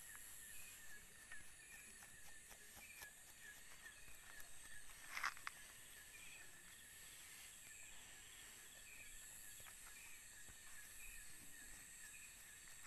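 Faint night chorus of crickets: a steady high trill with small chirps repeating about twice a second. A brief rustle comes about five seconds in.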